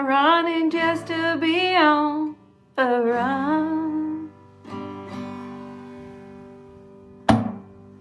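A woman sings the last drawn-out words of a folk song over an acoustic guitar. A final strum about halfway through rings on and slowly fades, and a short sharp knock comes near the end.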